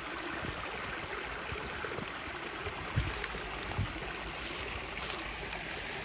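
Stream water running with a steady rushing noise, with two soft low bumps midway through.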